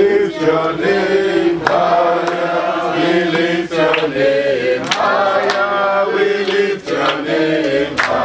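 A group of men and children singing together, voices holding and sliding between notes, with a few sharp hand claps.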